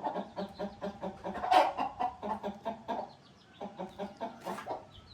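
Hens clucking in a fast run of short repeated notes, about four or five a second, with one louder note about a second and a half in and a short lull near the middle. These are mother hens calling after their chicks.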